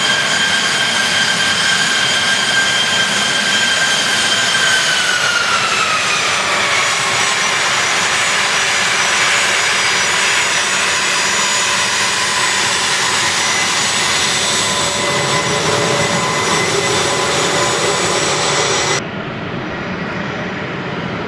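An A-10 Thunderbolt II's twin General Electric TF34 turbofan engines running loud as the jet taxis, with a high whine over the jet noise that drops in pitch about five to seven seconds in. Near the end the sound changes abruptly to a duller, quieter jet noise.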